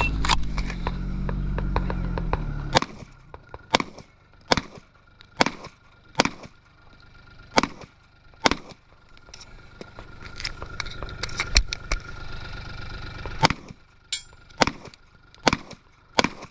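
Airsoft pistol firing a string of sharp single shots, roughly one a second, during a timed shooting stage. A low engine-like drone runs for the first few seconds and stops just as the first shot fires.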